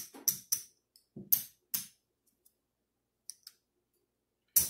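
Casino chips clacking together as they are picked up, stacked and set down while being counted. There is a quick run of sharp clicks, a pause, and then a louder clack near the end.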